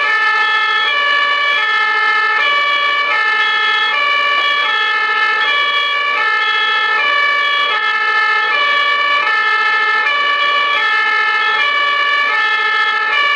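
German ambulance two-tone siren (Martinshorn) sounding continuously, alternating evenly between a high and a low pitch.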